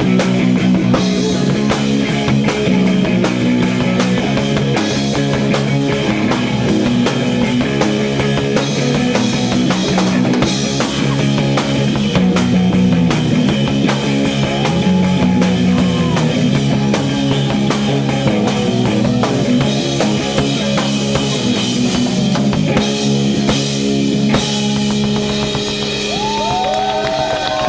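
Live rock band playing an instrumental passage: electric guitars holding low, driving notes over a full drum kit. A few short sliding notes come in near the end.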